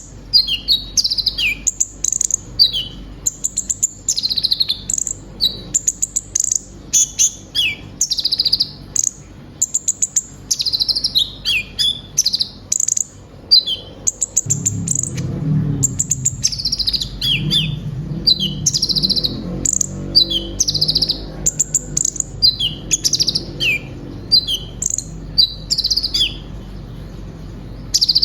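Kolibri ninja sunbird (konin) singing a busy, continuous song of quick high chirps, rapid trills and short downward-sliding notes, full of phrases mimicked from other birds. A low rumble sits underneath from about halfway.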